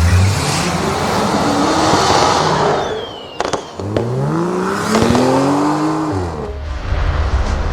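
Demo reel of AI-generated sound effects playing back, here a car sound: a dense rushing noise with a sharp click about three seconds in, then an engine-like pitch that rises and falls over about two seconds.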